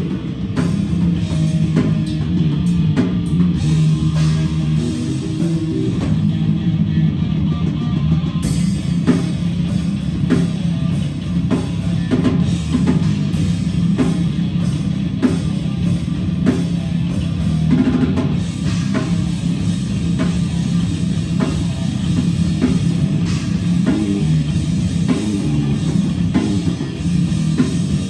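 Live heavy metal band playing loud and steady: distorted electric guitar and bass guitar over a drum kit.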